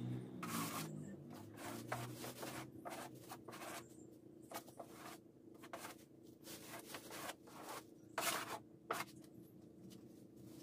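A rag rubbed and scraped over a plywood surface in short, irregular strokes, with a few louder strokes near the start and about eight to nine seconds in.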